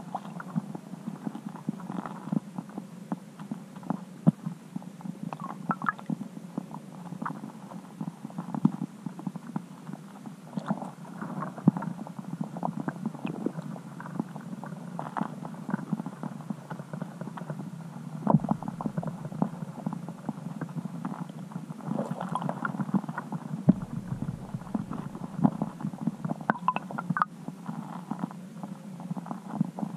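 Muffled underwater sound picked up through a submerged camera's waterproof housing: a steady low rumble with frequent small clicks and knocks.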